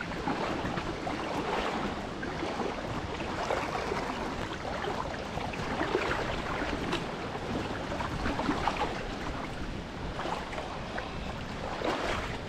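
A river running high, rushing and splashing, with a strong wind buffeting the microphone.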